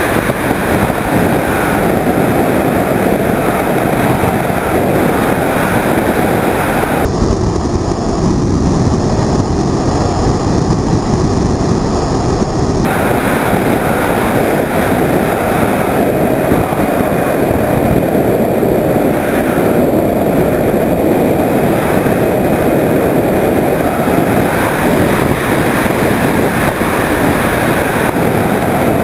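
Steady rush of airflow over the camera on board a Skyhunter 1.8 m RC plane in flight, mixed with the plane's electric motor and propeller running.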